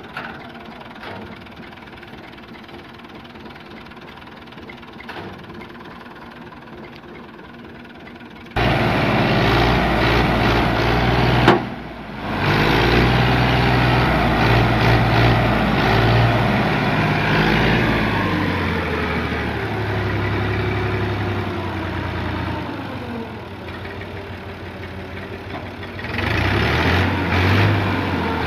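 Tractor diesel engine idling, then revved up sharply about eight seconds in and held at high revs to work the hydraulics that tip up the loaded brick trolley. It dips briefly once, eases off for a few seconds and rises again near the end.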